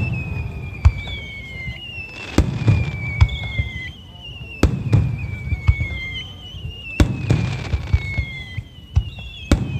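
Aerial fireworks shells bursting, sharp bangs about every two seconds with a low rumble after each. A high tone glides down in pitch again and again across the bursts.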